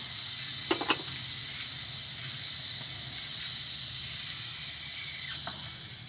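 Steady hiss of nitrogen gas flowing into a heat pump's refrigerant lines for a pressure test, with faint high steady tones in it. A couple of light clicks come about a second in, and the hiss fades near the end.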